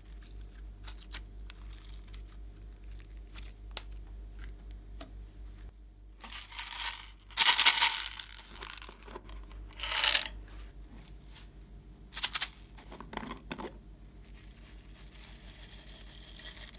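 Slime being stretched and worked by hand, with small sticky clicks and pops. Then come several loud crinkling squeezes of a soft plastic squeeze bottle. Near the end there is a light hiss of tiny beads and sprinkles pouring onto the slime.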